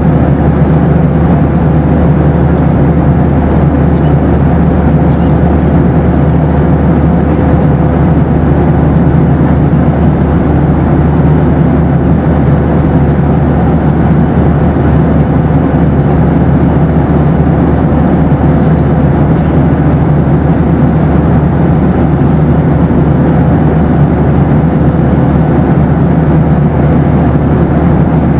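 Boeing 737 cabin noise in flight: a steady, loud rush of engine and airflow noise, deepest in the low range, with a faint steady tone running through it.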